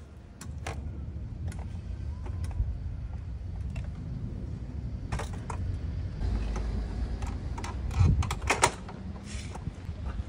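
Clicks, clanks and rattles of a portable mobility scooter's plastic and metal sections being set down and latched together, with a cluster of the loudest sharp clicks about eight seconds in. A steady low rumble underlies it.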